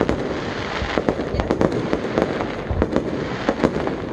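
Aerial fireworks bursting overhead: many sharp bangs and pops in quick succession, over a steady crackle.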